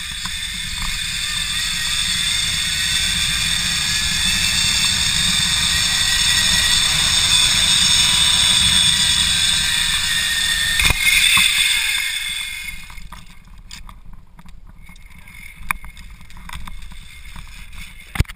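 Zip-line trolley pulleys running along the steel cable: a loud high whir over wind rumble on the microphone, building as the rider speeds up and dying away about 13 seconds in as the trolley slows. After that, light clicks, then a sharp knock near the end.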